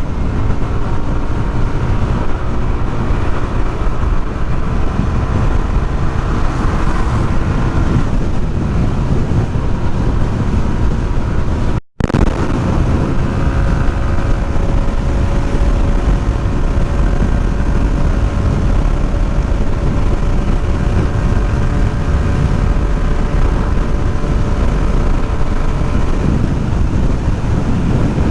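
Wind rushing over the microphone while riding a Yamaha NMAX 155 scooter, with the faint steady hum of its engine underneath. The sound cuts out for an instant about twelve seconds in.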